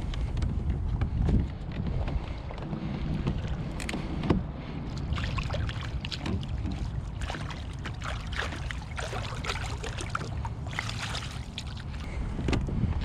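Fishing kayak being launched and moving on the water, with many short knocks and splashes against the hull over a steady low rumble of wind on the microphone.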